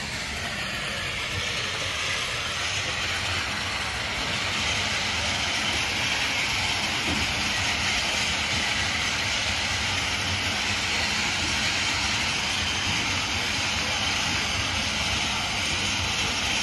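Toothed conveyor belt lifting muck up from the river at a hydro dam, running loud and steady, a little louder from about four seconds in.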